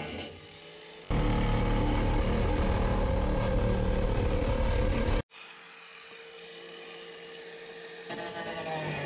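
Power tools cutting the sheet steel of a truck cab floor. An angle grinder with a cut-off wheel runs briefly, then about a second in a reciprocating saw is much louder for about four seconds and cuts off suddenly. After that the grinder runs steadily with a held tone, slowly getting louder.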